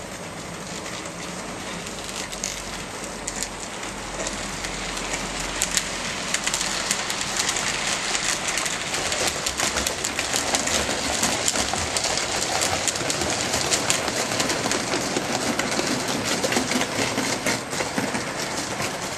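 OO gauge model trains running over the track: a steady rattle of wheels on rail, dotted with many small clicks at the rail joints, growing louder from about six seconds in as a train passes close by.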